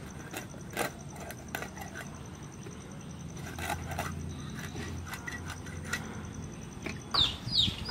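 Rohu fish being cut into pieces on a boti: scattered irregular knocks and crunches as the blade goes through flesh and bone. A chicken starts clucking near the end.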